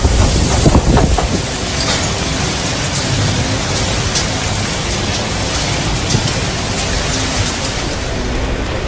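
Heavy storm rain pouring steadily, with a loud, uneven low rumble in the first second or so that then settles into an even hiss.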